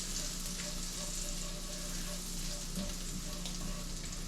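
Melted butter sizzling in a hot pan over a fire, a steady hiss with small crackling pops.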